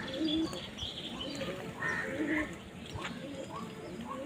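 Birds calling: short low dove coos mixed with scattered higher chirps.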